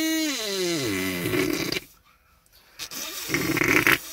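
Mouth-made engine imitation: a buzzing voice blown through cupped hands, sliding up and down in pitch, stops a little under two seconds in; a short, louder raspy blast follows near the end.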